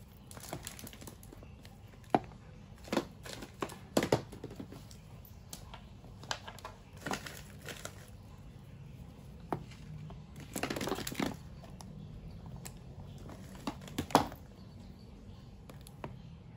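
Toy packaging crinkling and rustling as it is handled and opened, with several sharp clicks and a longer rustle about eleven seconds in.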